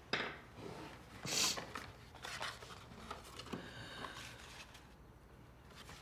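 A few short, soft rustling sounds over a quiet room, the loudest about one and a half seconds in.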